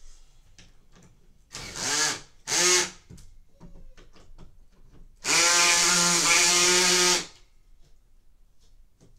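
Cordless drill driving a bolt into the bed frame's rail bracket: a short run that rises in pitch about one and a half seconds in, a brief burst, then a steady run of about two seconds. Light clicks between the runs.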